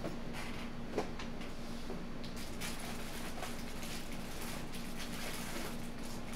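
Faint clicks and rustles of small containers of diamond-painting drills being handled and put away, with one sharper click about a second in, over a steady low hum.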